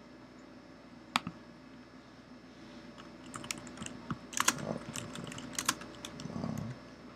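Typing on a computer keyboard: a quick run of keystrokes in the second half, after a single click about a second in.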